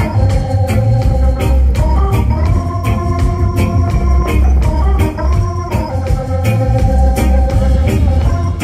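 Live reggae band playing an instrumental passage: Hammond organ holding sustained chords over heavy bass, drums and electric guitar in a steady rhythm.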